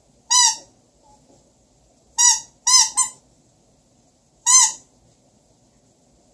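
Five short, high squeaks from a squeeze toy. There is one, then three in quick succession about two seconds in, then one more near the end.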